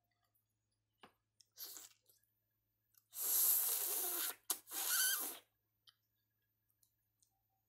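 Slurping and sucking at a boiled free-range chicken's head to draw out the brain. There are two long loud sucks about three seconds in, split by a small click, after a short one about a second and a half in.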